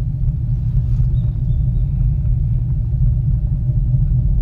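Steady low rumble inside a Miyajima Ropeway gondola cabin as it travels along the cable, with a faint steady hum over it.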